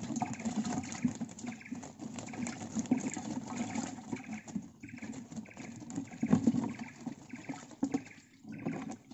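Swamp water splashing and sloshing as a wire fish trap is handled at the side of a canoe, with a few sharper splashes. A faint high chirp repeats about twice a second behind it.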